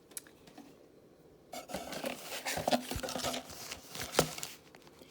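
Rummaging through a sewing machine drawer: paper packets and small items rustling and clicking as they are handled for about three seconds, with one sharp click about four seconds in.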